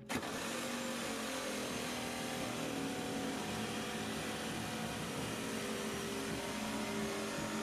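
An electric power tool switches on abruptly and runs steadily, a whirring motor under a hissing cutting noise, most likely cutting into the bat or the saw blade.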